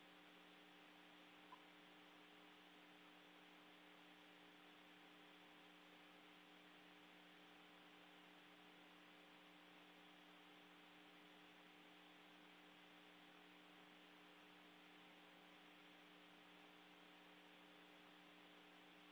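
Near silence: a faint, steady electrical hum with light hiss.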